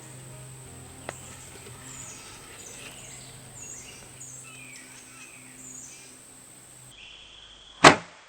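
Small birds chirping with short falling notes, then near the end one loud, sharp snap of a bow being shot.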